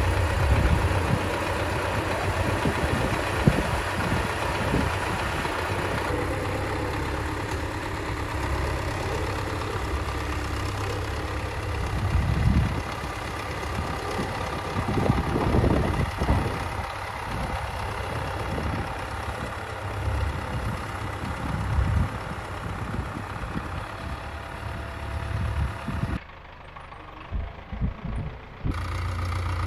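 Diesel engine of a red Belarus (MTZ) wheeled tractor running steadily while it pulls a plough through the soil. The sound turns briefly quieter and muffled near the end.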